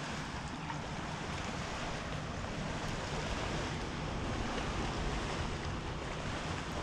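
Steady wind noise across the microphone outdoors, an even rushing hiss with no breaks.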